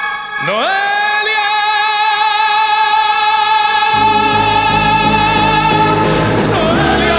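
A singer slides up into one long held note with vibrato over a pop-ballad accompaniment. Low bass notes come in about halfway through.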